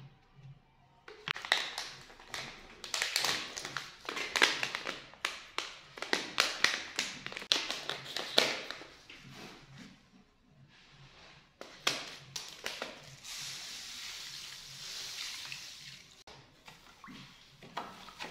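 A sea salt pouch is handled and opened with many sharp plastic crackles. About twelve seconds in, a steady hiss follows as the salt is poured into a plastic bowl of warm water. Near the end a wooden spoon knocks lightly against the bowl as it stirs.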